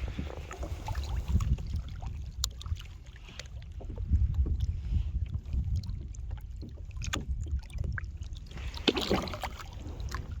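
Low wind rumble on the microphone, with scattered knocks and light water sounds from a fishing kayak.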